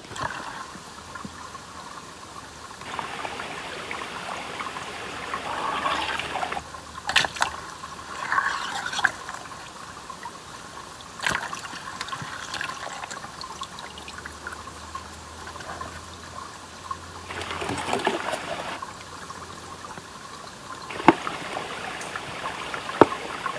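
Shallow creek trickling, with bouts of louder gurgling as a plastic water bottle is dipped and filled in it, and a few sharp knocks as the bottle is handled.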